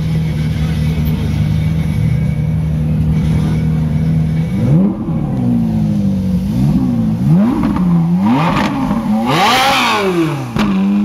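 Ferrari 458's 4.5-litre V8 idling steadily, then revved in a string of quick throttle blips from about four and a half seconds in, each rising and falling in pitch. The last blip, near the end, goes highest and is the loudest.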